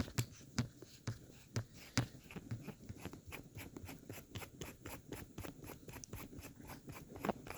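Small, quick clicks and taps of a metal lightsaber hilt being handled and worked one-handed, several clicks a second with a few louder knocks among them.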